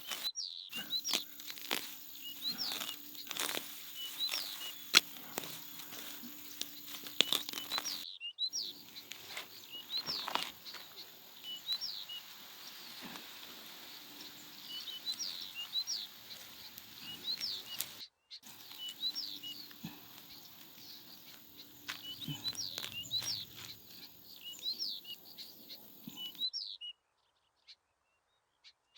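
Small birds chirping over and over in short sliding chirps, with scattered light clicks and knocks. The sound breaks off suddenly several times and ends in near silence.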